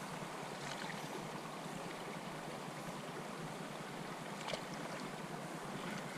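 Steady rush of river water flowing over a run, with one faint click about two thirds of the way in.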